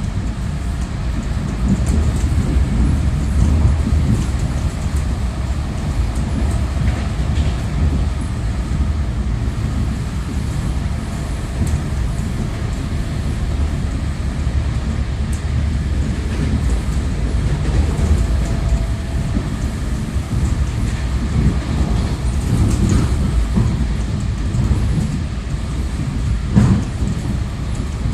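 Inside a moving Russian suburban electric train (elektrichka): steady rumble of the wheels on the rails, with a few short knocks, the clearest near the end.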